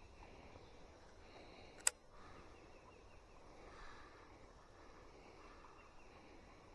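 Faint outdoor background with one sharp click about two seconds in.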